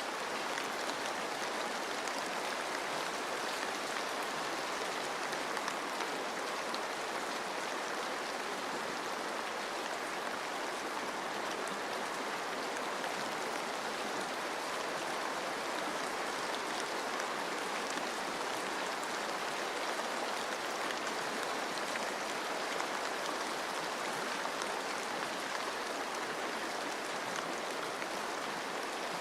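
Steady rain in a forest, drops pattering on leaves over an even rush of flowing water.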